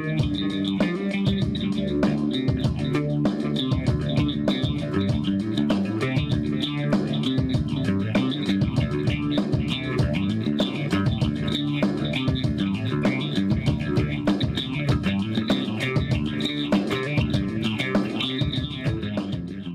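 Outro music: rock-style guitar and bass with a steady beat, fading out near the end.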